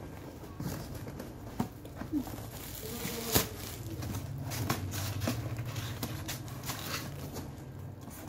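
Clear plastic wrapping film crinkling and rustling as it is pulled off a cardboard parcel, with scattered sharp clicks and taps. A low hum joins from about four seconds in.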